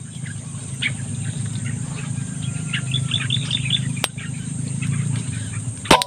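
Small birds chirping over a steady low rumble, with a quick run of repeated chirps about halfway through and a single click a little after. Near the end comes one sharp crack, the loudest sound: the shot of a PCP air rifle.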